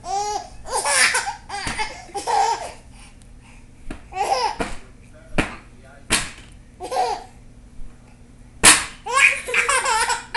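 Six-month-old baby laughing in repeated bursts of belly laughs and high squeals, with short pauses between fits. There are a few sharp snaps in the second half, the loudest a little before the end.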